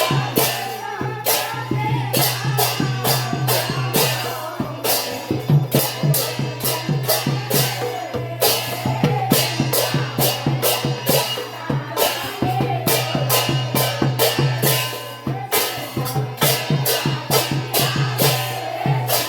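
Sylheti dhamail folk song: voices singing together over a quick, regular beat of sharp percussive strokes. The music dips briefly about three-quarters of the way through.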